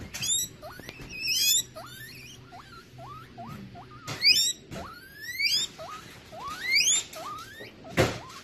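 Guinea pig wheeking: a series of loud rising whistles, with short, quieter rising squeaks in between. A sharp thump near the end.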